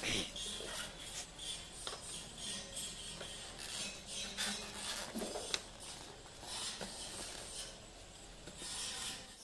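Polystyrene foam packaging rubbing and scraping in the hands as new engine parts are pulled out of their moulded slots, with a few short sharp knocks.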